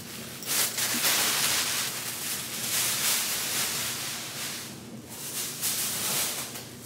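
Glass cleaner sprayed onto a mirror and the glass wiped down: a short hissing spray about half a second in, then a long stretch of uneven rubbing on the glass.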